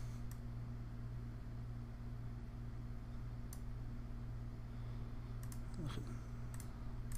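A handful of faint, spaced-out computer mouse clicks as sliders are adjusted, over a steady low hum.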